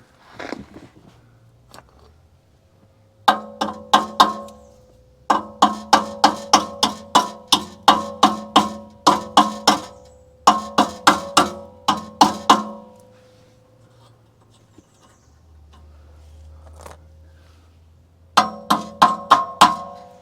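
A hammer striking the rusted exhaust pipe at the intermediate-pipe-to-muffler joint, each blow ringing with a metallic tone. The blows come in runs of two to three a second with pauses between, as the seized joint is knocked to free it.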